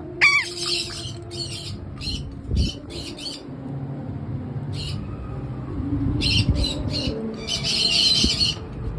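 Patagonian conure giving harsh, screeching squawks in short clusters with pauses, the longest call near the end.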